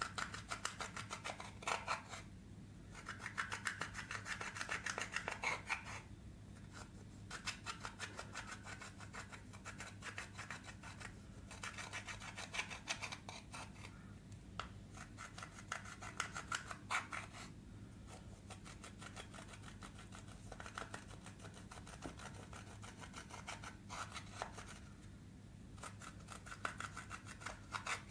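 Pressed powder eyeshadow being scraped and crumbled out of its palette pans with a small clear plastic tool: rapid gritty scratching strokes in runs of a few seconds, with short pauses between.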